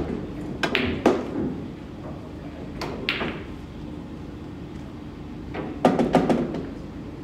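Pool balls clacking in a nine-ball game: two sharp clacks about a second in, two more around three seconds, and a quick run of clacks around six seconds.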